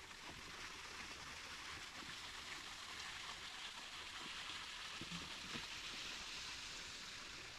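Creek water running over rocks: a steady, faint rush.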